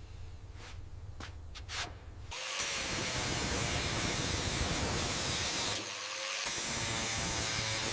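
A workshop tool starts up about two and a half seconds in and runs as a loud, steady hiss, briefly thinner about six seconds in. Before it there is a quieter low hum with a few short scraping sounds.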